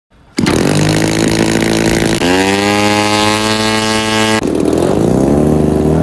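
Engine of a large radio-controlled aerobatic airplane running, starting abruptly about half a second in. It revs up just after two seconds, drops back briefly near four and a half seconds and climbs again.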